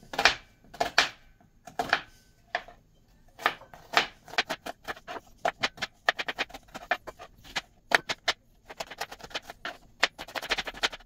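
Kitchen knife chopping an onion on a plastic cutting board: sharp taps of the blade on the board, spaced out at first, then quicker runs of chopping in the second half.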